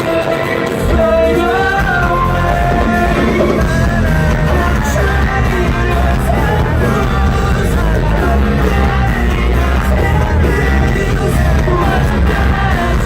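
Rock band playing live with a lead singer's vocal line. Heavy bass and drums come in fully about a second in.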